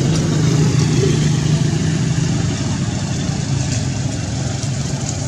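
A motor running steadily, a low droning hum with a hiss over it, easing off slightly in loudness toward the end.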